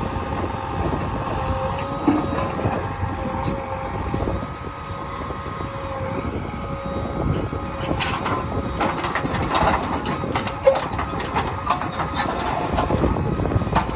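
JCB 3DX backhoe loader's diesel engine running steadily under load. From about halfway on, its bucket knocks and scrapes against hard stone in a run of sharp clanks.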